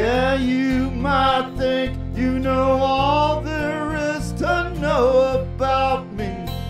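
Live band music: a strummed Gibson acoustic guitar over bass guitar, with a wavering melody line on top.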